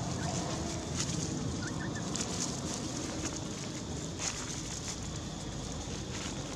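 Monkeys moving over dry fallen leaves: scattered crackling rustles, with a few brief high chirps about two seconds in.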